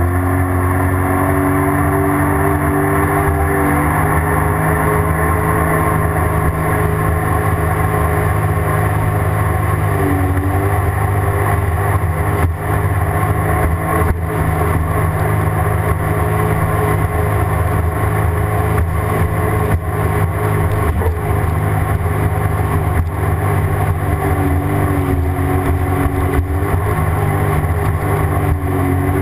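Sea-Doo GTX personal watercraft engine running steadily while cruising, its note shifting slightly in pitch a few times as the throttle changes.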